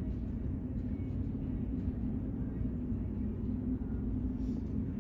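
Steady low rumble with a constant hum, unchanging throughout.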